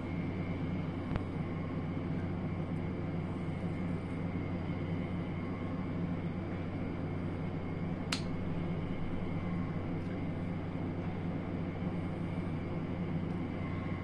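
A steady low mechanical hum with a thin high whine over it. A faint click comes about a second in, and a sharp click about eight seconds in as a metal fork strikes the bowl.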